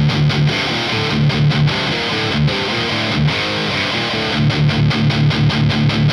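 Distorted electric guitar riff played through a Fortin amp simulator and a Mesa Traditional 2x12 cabinet impulse response with Celestion V30 speakers. Tight, evenly repeated low chugs open and close the passage, with a busier run of changing notes in between.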